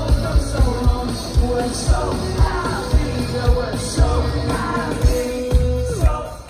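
Live indie rock band playing over a festival PA: a steady kick-drum beat under guitars and singing. The vocal line ends in a long held note about four seconds in, and the band drops out briefly near the end.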